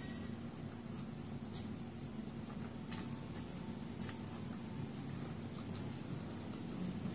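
Eating sounds from fried chicken lollipop being picked apart by hand and chewed, with a few sharp crisp clicks about one and a half, three and four seconds in. A steady high-pitched whine and a low hum run underneath.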